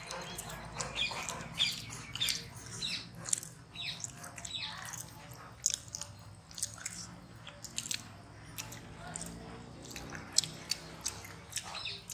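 Several people biting and chewing soft homemade donuts: irregular wet mouth clicks and chewing sounds.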